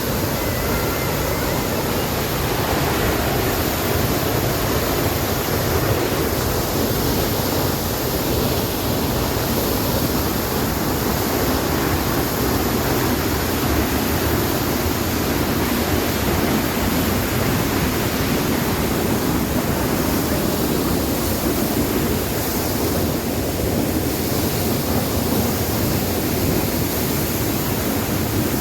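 Waterfall: a loud, steady rush of falling water that hardly changes.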